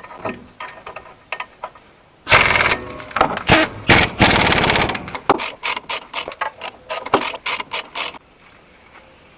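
A ratchet wrench rattling rapidly in two bursts of about a second each while brake bolts are worked, followed by a run of irregular metallic clicks and knocks.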